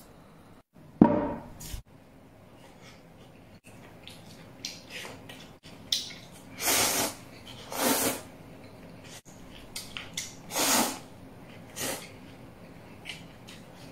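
Kitchen cooking sounds: a heavy thump about a second in, then four short hissing, splashy bursts of about half a second each.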